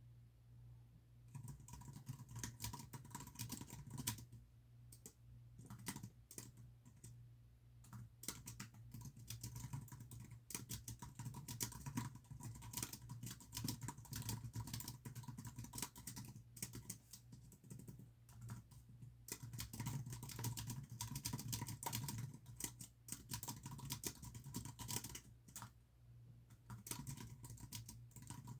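Fast typing on a computer keyboard in runs of keystrokes with short pauses, starting about a second in, over a steady low hum.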